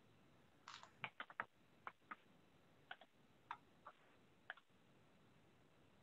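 Faint, irregular keystrokes on a computer keyboard: about a dozen short taps over four seconds, some in quick runs, over near-silent room tone.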